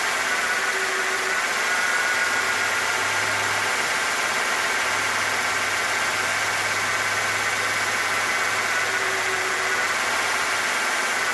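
1996 Ford F-150's straight-six engine idling with a misfire on one cylinder. The miss comes from a faulty fuel injector: it moved with the injector when two were swapped, so the injector is likely plugged.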